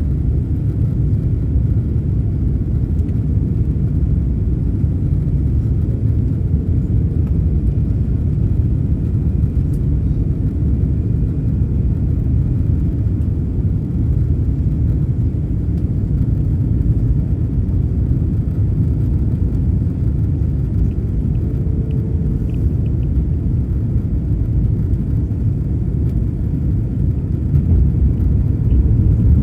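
Steady low rumble of an Airbus A330's cabin, heard from a passenger seat during the descent on approach: engine and airflow noise.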